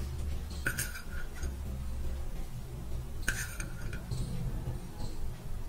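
Steel plate clinking lightly twice, each clink ringing briefly, as dry-fruit slivers are set on the barfi, over a steady low hum.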